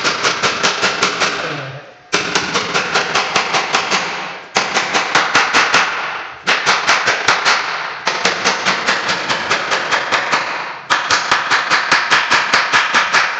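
Hammer tapping rapidly against wooden door-frame trim, about six quick blows a second, driving nails to fix the strip. The blows come in runs of a few seconds that break off and start again abruptly.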